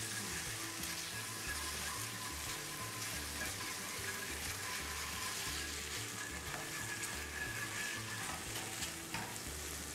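Thin strips of chicken sizzling steadily in a hot frying pan as they are stirred and turned.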